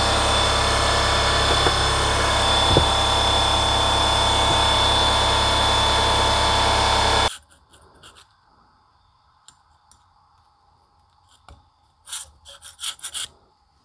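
Handheld power tool running steadily with a high whine as it cleans a driveshaft U-joint yoke, cutting off suddenly about seven seconds in. Near the end come a few short scraping strokes from a hand tool worked inside the yoke ear.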